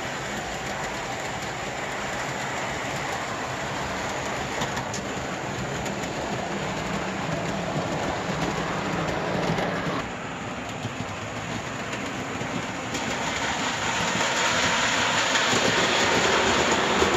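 Vintage O scale model train with cast aluminum passenger cars running on outside third-rail track: a steady rolling noise of metal wheels on the rails. It drops a little about ten seconds in and grows louder near the end.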